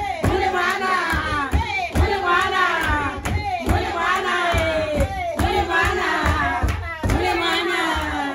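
Festive music: voices singing a short falling phrase over and over, about every second and a half, over a beat of low thumps and sharp strikes.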